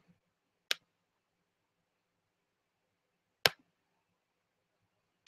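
Near silence broken by three short, sharp clicks, the second one the loudest.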